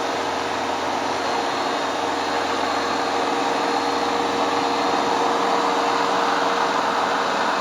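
Hoover Dual Power Max carpet cleaner running steadily without its boost setting: a rushing suction noise with a steady hum underneath.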